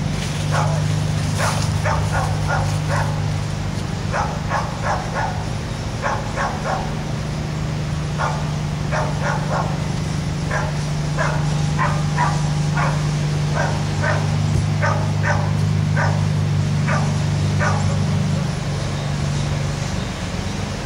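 A dog barking over and over, in quick runs of three or four barks, over a steady low hum.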